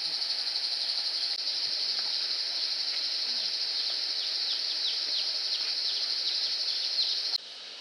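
Steady, high-pitched chorus of night insects, with a string of short falling chirps over it in the second half. The chorus cuts off suddenly near the end.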